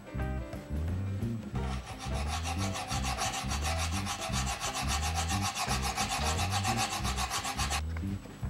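Hand file rasping back and forth across the steel of a knife blade cut from a circular-saw disc, in quick repeated strokes that start about one and a half seconds in and stop shortly before the end.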